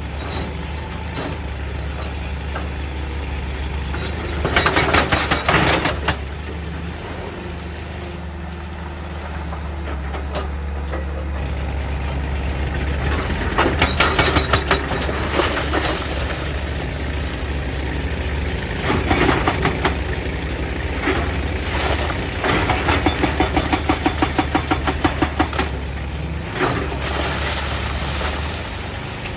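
JCB excavator's diesel engine running steadily, with a hydraulic rock breaker hammering rock in several bursts of rapid, even blows.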